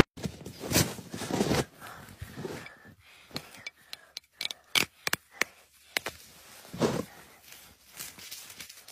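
A knife slitting a big rubber balloon and the rubber being peeled off the ball of ice frozen inside it: scattered short scrapes and snaps of stretched rubber.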